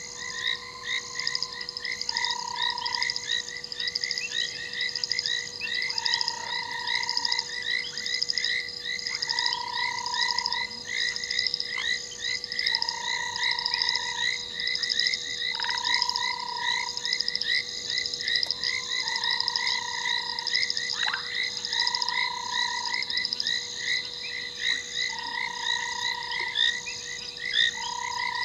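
A chorus of frogs calling at a waterhole at night: a dense, rapid pulsing of high-pitched calls throughout, with a lower, one-second call repeating every two to three seconds.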